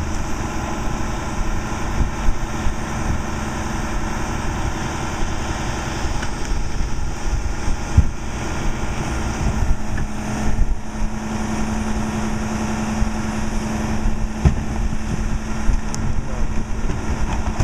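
Diesel engine of a Crane Carrier LET2 rear-load garbage truck idling steadily. Its hum grows stronger about ten seconds in, with a few scattered knocks.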